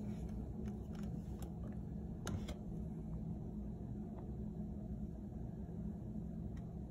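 Steady low background hum, with a few faint light clicks and taps as a small aluminium tattoo power supply is turned over in the hands; the clearest pair of clicks comes a little over two seconds in.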